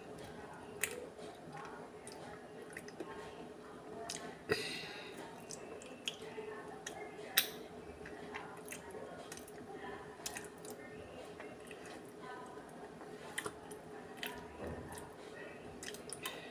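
Close-up eating sounds of ice cream off a metal spoon: wet mouth and lip sounds with scattered sharp clicks of the spoon, the loudest about four and a half and seven seconds in, over a faint steady hum.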